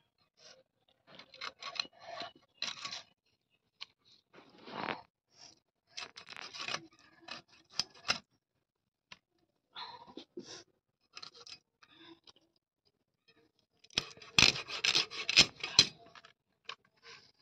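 Rohu fish being cut on a boti blade: irregular bouts of scraping and rubbing as flesh and scales are worked against the blade and the banana leaf. Near the end comes a louder bout with a few sharp knocks.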